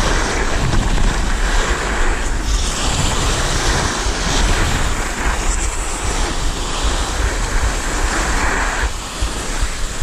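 Wind buffeting the microphone while skiing downhill, with skis hissing and scraping over packed snow in swells as the skier turns.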